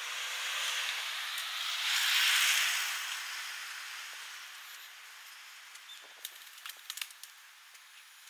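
A vehicle passing by: a rush of noise swells to a peak about two seconds in and then slowly fades. A few sharp clicks follow near the end.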